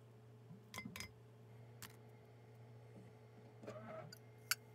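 A few light clicks and knocks from the glass blender jar of frozen strawberries being handled, the sharpest one near the end, over a faint steady hum.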